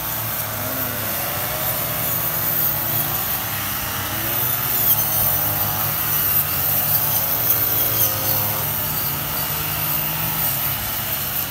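Several petrol brush cutters running steadily as they cut grass, a continuous motor buzz whose pitch wavers up and down.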